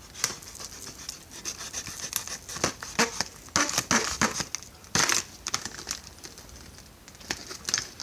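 Crinkling and crackling of a clear plastic retail package being pried and bent open by hand to free a pocket knife, in irregular bursts with sharp clicks, loudest in the middle.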